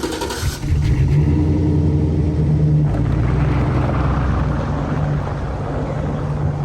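Chevrolet Express van's engine running with a steady low drone, loud from about half a second in.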